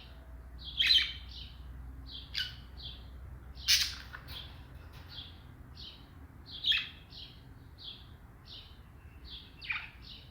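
A pair of caged birds calling: a steady run of short chirps, about two a second, broken by a few louder, sharper calls.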